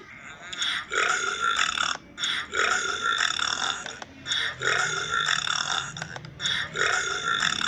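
A person belching over and over, one burp after another about once a second.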